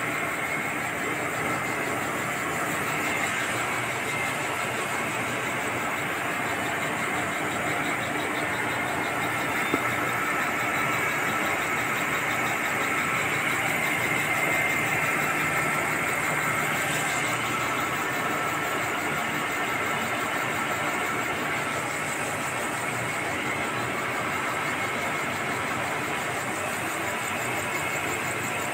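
Industrial machinery running with a steady drone and hum, and one brief knock about ten seconds in.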